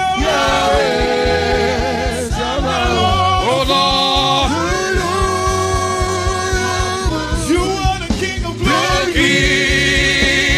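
Gospel worship music: voices singing long held notes over instrumental backing with a steady beat.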